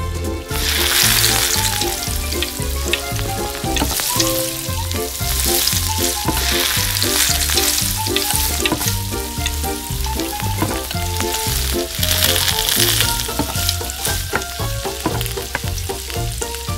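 Salmon fillet frying in hot melted butter in a tiny steel pan: a loud sizzle that starts about half a second in as the fillet goes into the butter, then swells and eases in waves. Background music with a steady beat runs underneath.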